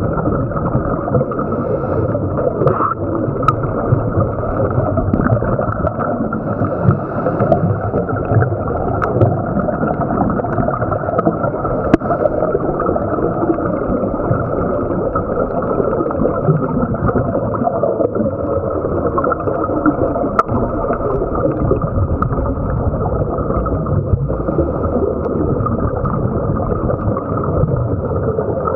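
Muffled underwater noise through a waterproof camera housing: a steady gurgling of scuba divers' exhaled bubbles, with a few sharp clicks.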